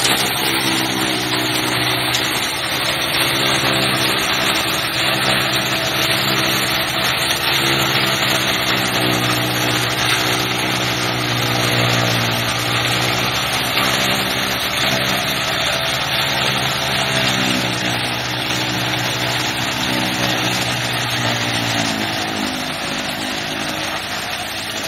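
Tractor engine running steadily, driving a PTO-powered cotton stalk shredder, with a dense mechanical whirr over the engine note. The engine pitch sags a little near the end, as under added load.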